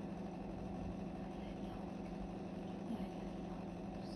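A steady low hum over a faint rumble, with a small knock about three seconds in.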